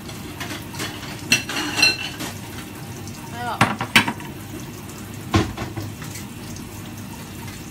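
Ceramic dishes clattering on a kitchen counter: a bowl knocked and set down, with a handful of sharp clinks, some ringing briefly. A steady low background noise runs underneath.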